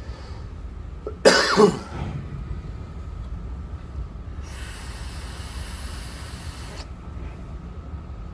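A harsh cough about a second in, then a steady airy hiss lasting a couple of seconds as a long draw is pulled through a copper tube mod's 0.1-ohm sub-ohm atomizer, the coil firing.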